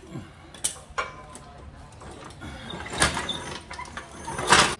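Metal clinks and knocks of hand tools and hardware being worked during a front differential drop install, several sharp strikes spread through, then a short rasping burst near the end that stops abruptly.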